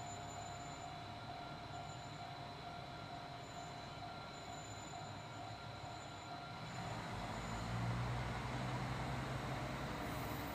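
Single-car diesel railcar running as it pulls away along the line, a steady mechanical drone with a thin whine. About seven seconds in, a low engine rumble swells and grows louder as the railcar powers up.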